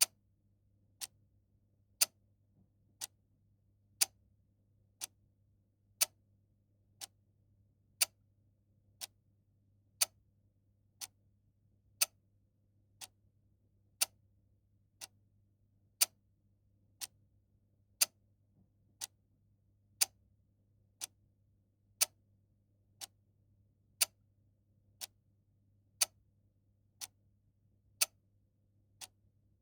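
Clock ticking steadily at one tick a second, the ticks alternating louder and softer in a tick-tock pattern.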